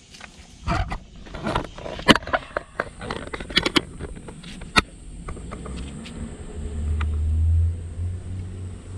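Scattered sharp clicks and knocks over the first five seconds, then the low engine rumble of a passing vehicle that swells about seven seconds in and eases off near the end.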